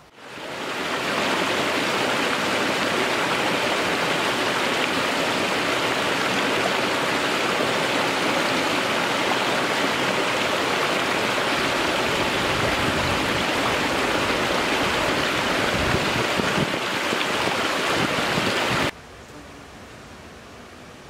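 Mountain river rushing over rocks: a steady wash of water that swells in over the first second or two, then cuts off suddenly near the end.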